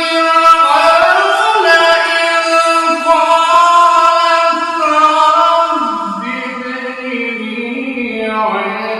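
A single voice chanting a Quran recitation in long, melodic, drawn-out notes; the melody steps down to a lower pitch about six seconds in.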